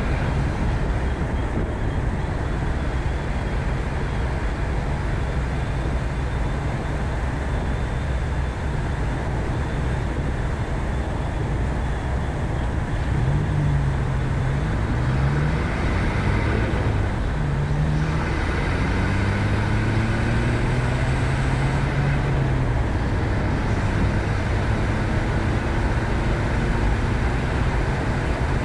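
Ford Focus ST driving, with a steady rumble of engine and road noise. From about halfway through, the engine note rises and drops several times, then holds steady and eases off.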